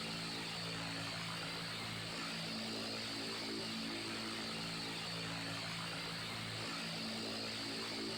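Electric fan running steadily: an even whoosh of air over a low motor hum.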